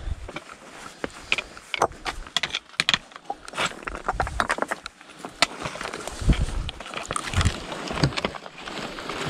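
Footsteps crunching and scraping over loose volcanic rock, with trekking-pole tips clicking on the stones in sharp, irregular clicks.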